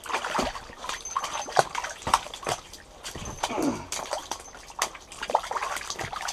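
A freshly landed burbot flopping on a wet ice-shack floor: irregular wet slaps and splatters as it thrashes and is grabbed at, with a short falling groan about three seconds in.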